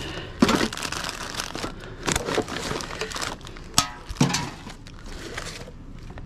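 Rummaging through a wheelie bin of recycling: plastic wrapping and bags rustling and crinkling while tins and bottles knock and clatter together as items are pulled out, with one sharp clack a little under four seconds in.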